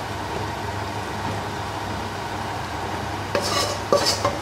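A wooden spatula stirring broth in a large stainless steel pot over a steady background hiss. Near the end come three quick knocks with a short metallic ring, as the spatula strikes the pot.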